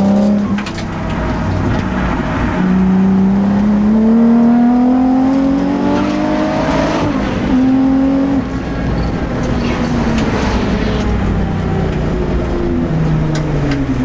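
Twin-turbocharged race car engine heard from inside the car, accelerating hard with its pitch climbing for several seconds under a high thin whine. It shifts around the middle, then the revs fall away as the car lifts off and slows.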